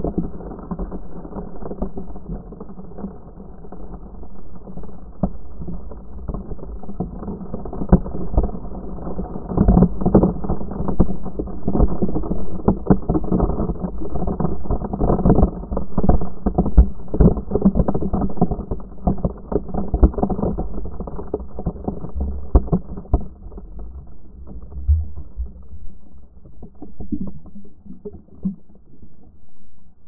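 Sea-wave wash churning and bubbling around an action camera at the waterline, heard muffled with many crackling pops. It is loudest in the middle and dies down near the end as the camera comes up to the surface.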